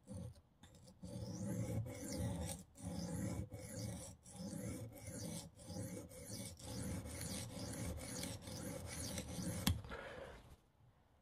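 Steel knife blade stroked back and forth on the coarse, 120-grit side of a cheap bench sharpening stone: a run of gritty scraping strokes at about one a second that stops about ten and a half seconds in. The edge is being worked a little longer to raise a full burr.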